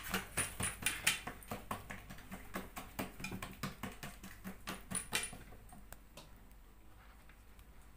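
Fingers patting and pressing oiled msemen dough flat in a glazed terracotta dish: a quick run of small wet slaps, about four a second, that stops about five seconds in.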